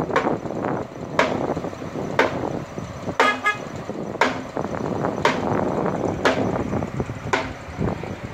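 Construction machinery, an excavator and a concrete mixer truck, running steadily, with sharp knocks about once a second and a short toot about three seconds in.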